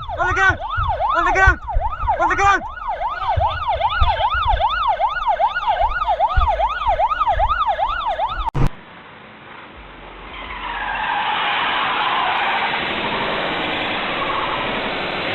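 Emergency vehicle siren on a rapid yelp, rising and falling about two to three times a second, which cuts off abruptly about eight and a half seconds in. A steady rushing noise then builds and holds.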